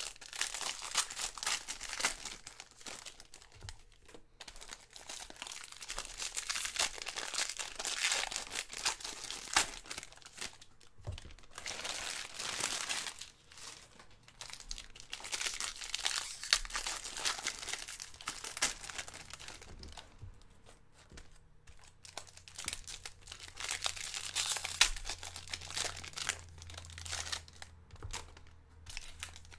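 Foil Bowman baseball card pack wrappers being torn open and crinkled by hand, in spells of crackling with short pauses between packs.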